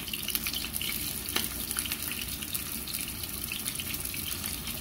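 Seasoned chicken breast strips sizzling in a frying pan with a little oil, a steady crackling hiss as more strips are laid in.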